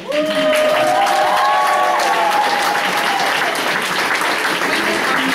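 A roomful of people applauding and cheering, starting suddenly, with long held cheers over the clapping in the first few seconds.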